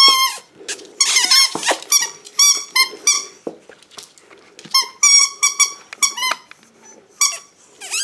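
Rubber squeaky toy squeaking over and over in quick runs of short, high-pitched squeaks as a puppy chews and tugs on it.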